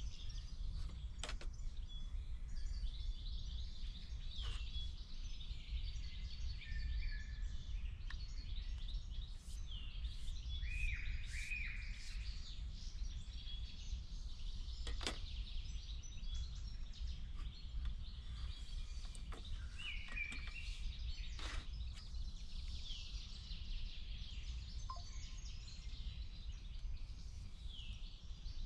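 Woodland birdsong: several small birds chirping and singing in short phrases, over a steady low rumble, with a few sharp clicks now and then.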